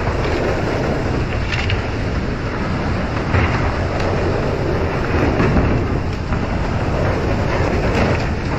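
Steady rumbling and rushing noise of a pole-and-line fishing boat under way: engine rumble, water jets spraying from the hull over the sea, and wind on the microphone, with a few faint clicks.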